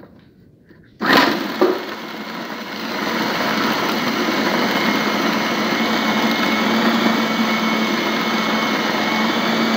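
Food processor motor switched on about a second in, running steadily as its blade chops raw boneless chicken into mince.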